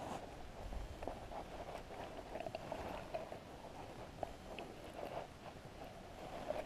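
Faint rustling of jacket fabric rubbing over the microphone, with scattered light clicks and taps from handling a fish in a landing net.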